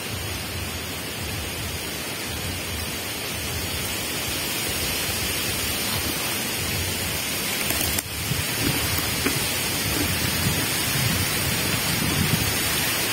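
Strong wind rustling through the fronds of young oil palms, a steady rushing rustle that grows louder about two-thirds of the way through, with low wind rumble on the microphone.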